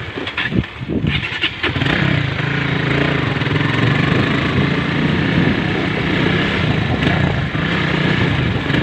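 Honda Sonic motorcycle engine running while being ridden. There are a few irregular knocks and shifts in the first two seconds, then the engine holds a steady pitch.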